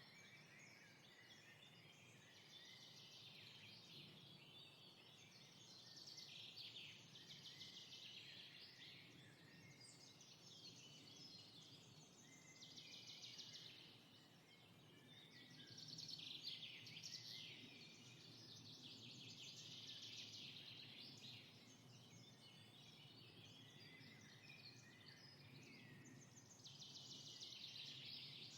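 Faint chorus of many birds chirping and trilling at once, swelling and fading in patches, over a soft low hum.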